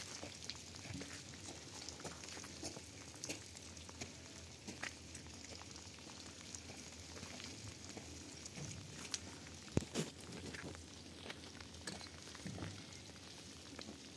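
Rain falling: a steady patter with many scattered drip clicks and one sharper tap about ten seconds in.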